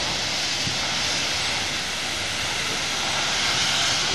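Steady hiss of steam escaping from the cylinder drain cocks of a Prussian P 8 steam locomotive, 38 3199, as it rolls slowly forward, with no separate exhaust beats.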